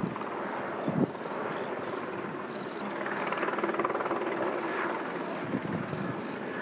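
A helicopter droning steadily overhead, with the pulsing beat of its rotor coming through for a couple of seconds around the middle. Under it is the low hush of a large outdoor crowd.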